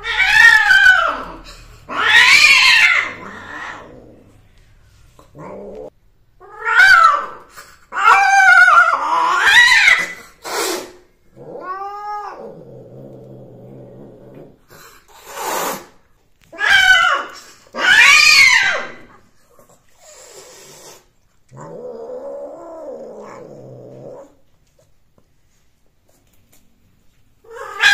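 Domestic cats caterwauling while mating: loud, drawn-out yowls that rise and fall in pitch, repeated about eight times, with two longer, lower growling calls between them.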